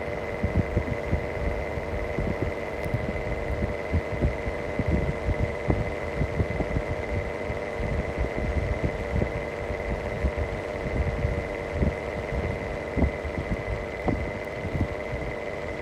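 Mistral exhaust fan running with a bad bearing: a steady hum and a high whine over an uneven low knocking throb.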